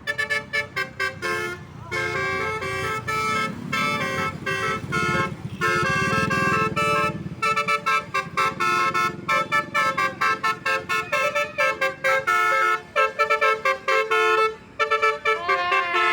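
Bus 'telolet' musical horn (basuri type) playing quick runs of short notes at changing pitches, like a tune, over and over.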